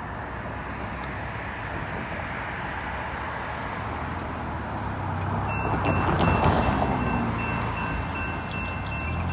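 Diesel freight locomotives approaching: a steady engine rumble that grows louder about five seconds in, with a thin high ringing tone joining it.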